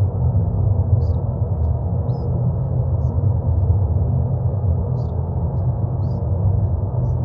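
Steady, deep droning noise, heaviest in the bass: the meditation-noise bed of a subliminal affirmation track. Faint, brief high chirps come in roughly once a second.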